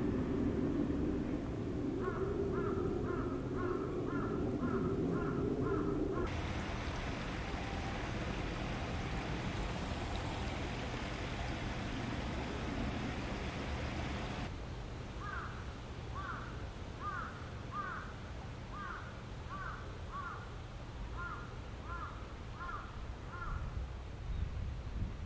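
A bird calls in two runs of short, quickly repeated notes, about two a second, the first a couple of seconds in and the second from about the middle to near the end. Between the runs, a steady rush of flowing water fills the sound.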